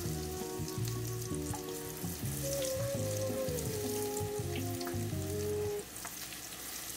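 Beer-battered onion rings frying in hot oil in a cast iron skillet: a steady sizzle with small crackles and pops. Low background music plays under it and stops about six seconds in.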